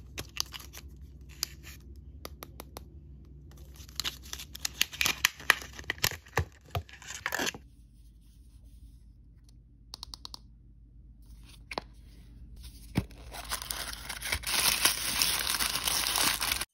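Plastic wrap being torn and peeled off an L.O.L. Surprise ball by fingernails. Scattered sharp clicks and taps come first, then a few seconds of dense crackling. After a stretch of sparse clicks, tissue paper and foil wrapping crinkle steadily and loudly over the last few seconds.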